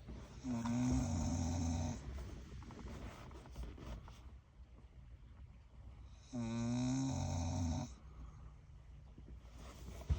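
Senior pit bull snoring in its sleep: two long, loud snores about six seconds apart.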